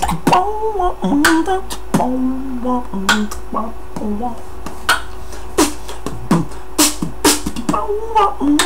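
Human beatbox: mouth-made kick and snare hits in a steady groove, with a hummed vocal line that glides and holds between the hits.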